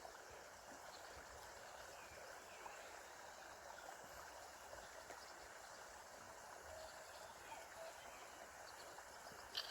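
Faint, steady rush of river water flowing over rocks.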